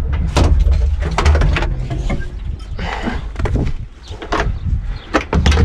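Idling diesel engine of a U445 DT tractor with repeated metal clanks and knocks from the sheet-metal cab door and fittings as the driver climbs out.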